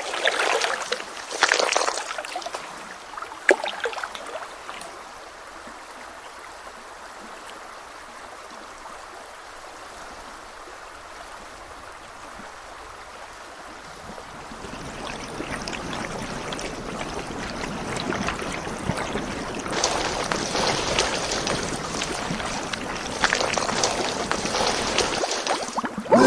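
Running water: a few sudden louder bursts in the first four seconds, a steady quieter rush, then from about halfway a louder, fuller rush.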